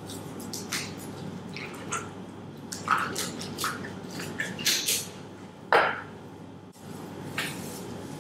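Chef's knife cutting raw chicken breast into pieces on a plastic cutting board: a string of irregular knocks and wet cuts as the blade meets the board, the loudest just before six seconds in, over a steady background hum.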